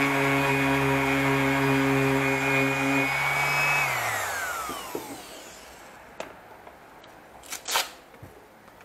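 Electric random orbital sander running with a steady whine, switched off about three seconds in, its pitch falling as the pad spins down over a second or two. Near the end, a few short clicks and a brief scrape as the sander is handled.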